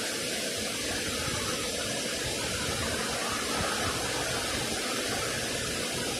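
SEPTA Silverliner IV electric multiple-unit standing at the platform, its ventilation and air-conditioning fans running with a steady rushing noise.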